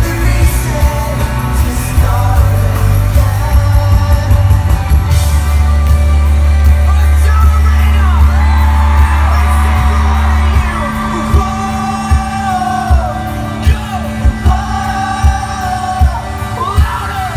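Pop-rock band playing live with singing and yells from the crowd. The heavy bass drops out about ten seconds in, leaving the vocals over a steady beat of thumps.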